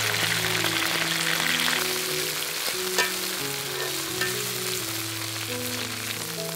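Wasp larvae sizzling as they fry in hot oil in a metal wok, the sizzle strongest at first and easing off a little, with one sharp tap about three seconds in. Soft background music plays underneath.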